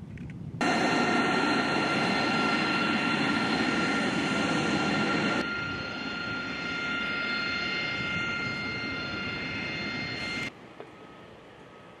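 A-10 Thunderbolt II jets' General Electric TF34 turbofan engines running on the ground, a loud rushing hiss with a steady high-pitched whine. It starts abruptly about half a second in, shifts to a somewhat quieter, lower mix about five seconds in, and cuts off suddenly near the end.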